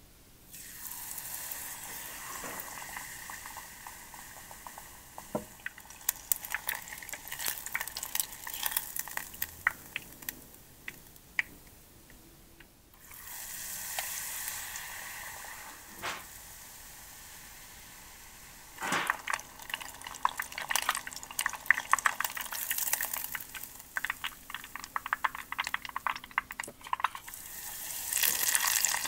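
Tempura frying in a small pot of hot oil: batter-coated pieces sizzle and crackle, the crackling swelling each time a new piece is lowered in, with a short lull about halfway.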